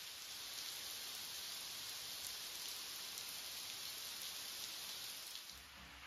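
Steady rain falling, a continuous hiss with scattered drop ticks. About five and a half seconds in there is a brief low thump, and the rain sound drops in level.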